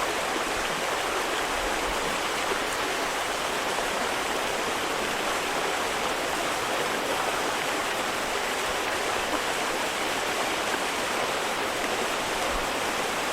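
Steady, unbroken rush of water, the sound of heavy storm rain and floodwater, even and unchanging throughout.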